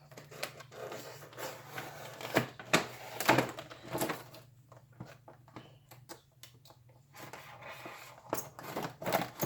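Handling sounds of opening a boxed flashlight: scattered knocks, clicks and rustles of packaging and plastic, with a quiet pause in the middle.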